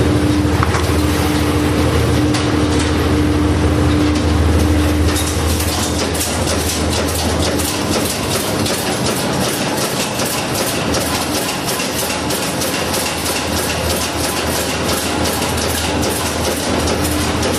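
Longline hooks clattering off the rack rails in a rapid, even clicking as the line is set, starting about five seconds in, over the steady hum of the fishing boat's machinery.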